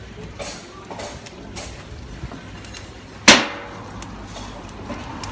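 A fire iron knocking inside a wood-fired stone oven: a few light clicks and knocks, then one loud, sharp clank about three seconds in that rings briefly.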